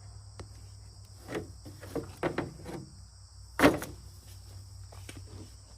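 Steady chirring of crickets or similar insects, with a few knocks and clunks and one louder knock about three and a half seconds in.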